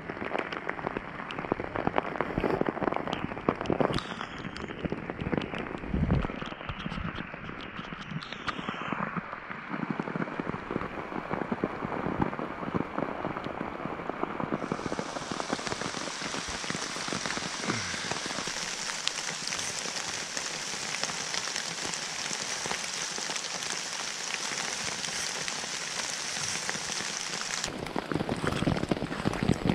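Steady rain falling, with many small drops hitting a stretched rain poncho and wet leaf litter. The tone of the rain shifts about halfway through and again near the end.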